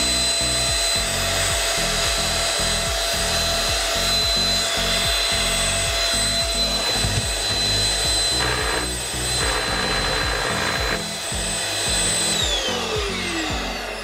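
SilverCrest SMS 300 A1 handheld anti-dust-mite vacuum cleaner running with a high whine, in what the owner takes for its vibration mode. About twelve seconds in it is switched off and the whine falls away as the motor winds down.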